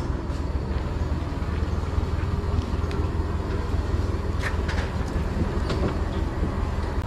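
Long-tail boat engine running steadily with a low, rough hum, with a few light knocks partway through.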